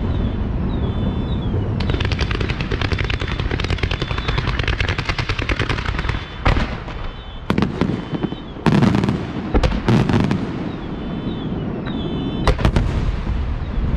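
Fireworks display: a dense, rapid crackling of many small bursts for several seconds, then a string of separate loud bangs from aerial shells bursting in the second half.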